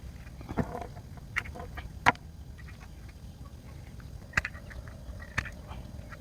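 Scattered sharp clicks and taps, about five in a few seconds, as a phone charger is handled and pried apart, over a low steady rumble.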